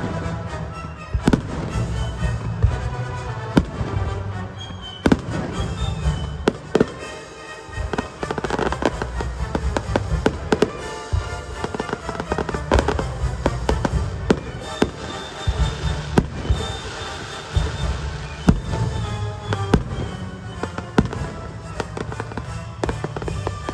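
Fireworks bursting in quick, irregular succession, with bangs and crackles throughout, over a music soundtrack.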